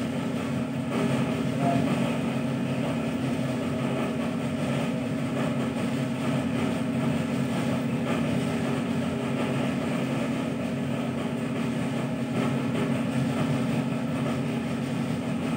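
Steady low mechanical hum with a light hiss, even in level and without breaks.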